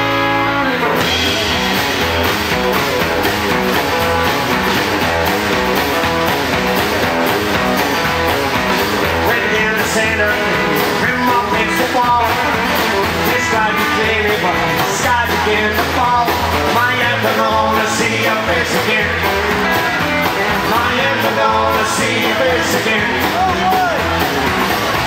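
Live rockabilly band playing the instrumental intro of a song: electric guitar lead over acoustic rhythm guitar, upright bass and drums.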